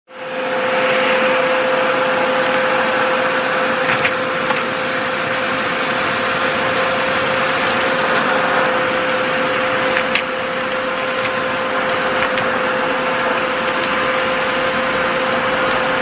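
Kärcher WD3 wet and dry vacuum cleaner running steadily, its floor nozzle sucking up muddy water and grit from concrete. A steady motor whine sits over the rush of air, with a couple of sharp ticks about four and ten seconds in.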